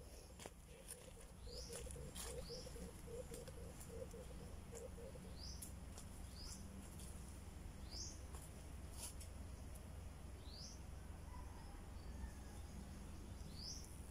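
A bird repeating a single short rising chirp every one to three seconds, faint over a steady low background rumble. A low, rapid pulsing call runs through the first five seconds, and a few sharp clicks are scattered through.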